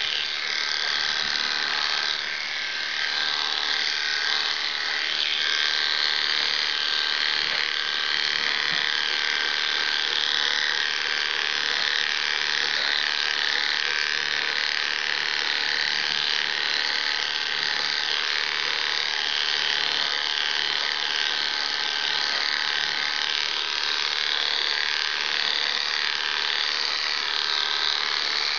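Electric dog grooming clippers buzzing steadily as they are run through a wet West Highland white terrier's coat.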